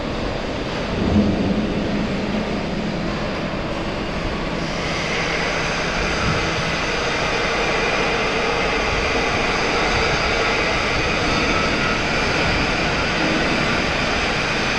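Hydraulic knuckle-boom brick crane working: a steady mechanical running noise from its hydraulic drive, with a short bump about a second in. A higher hiss or whine joins about four and a half seconds in while the boom and grabber move.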